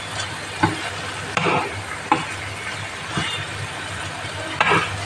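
Chicken pieces frying in oil in a nonstick pan, sizzling while a metal spoon stirs them, with a few short scrapes and knocks of the spoon against the pan.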